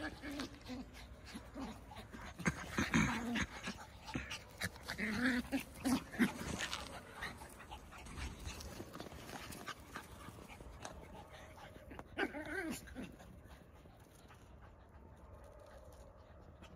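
Puppies vocalizing during rough play: short whimpering bursts a few times, about three seconds in, around five to seven seconds in, and again around twelve seconds in, between quieter stretches.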